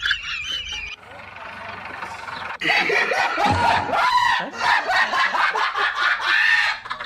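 High-pitched voice sounds, quieter for the first couple of seconds, then busy and continuous from about two and a half seconds in.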